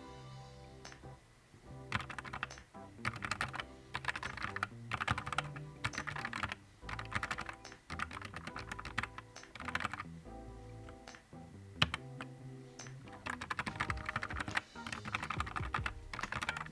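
Typing on a Nuphy Air 75 V2 low-profile mechanical keyboard: fast runs of key clicks in several bursts, with short pauses between them.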